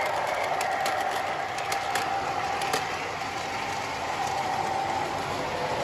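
MTH O-gauge model subway train running along the track: a steady motor and gear whine with scattered light clicks from the wheels on the rails, growing slightly fainter.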